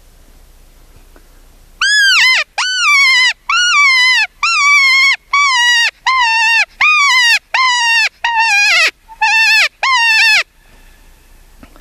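About eleven loud, high coyote-style yelps in quick succession, each jumping up and then sliding down in pitch. They start about two seconds in and stop near the end.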